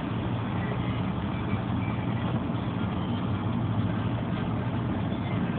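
Steady vehicle rumble heard inside the cabin of a car or van, a low even drone of engine and road noise.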